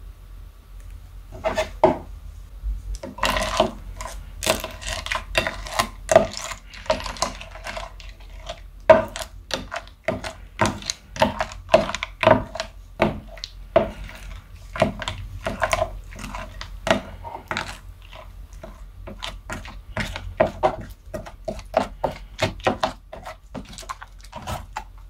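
Plastic pearl and fishbowl beads clacking and crackling against each other and a glass dish as a plastic spatula stirs them through wet clear glue. The clicks come in quick irregular strokes, a few a second.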